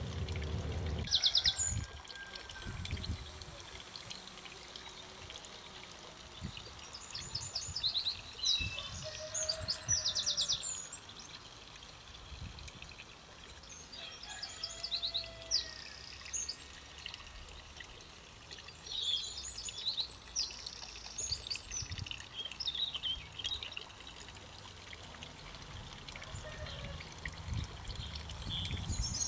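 Songbirds singing in a garden: repeated short, high trilled phrases with pauses between them. A low rumble sits under the song for about the first second and again near the end.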